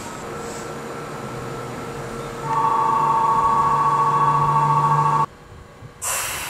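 Steady electrical whine and hum from the underfloor equipment of a standing Tokyu 5000 series train, at its Hitachi IGBT-VVVF main control box: a low hum with a few steady higher tones that grow louder about two and a half seconds in. It cuts off abruptly about five seconds in, and a short burst of hiss starts a second later.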